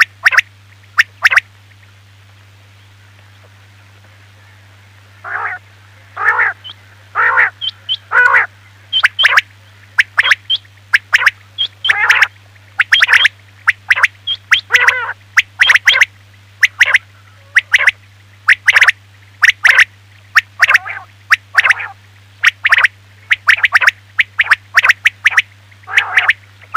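Quail calling: loud, short, sharp notes repeated in twos and threes, with a pause of about three seconds near the start. A steady low hum runs underneath.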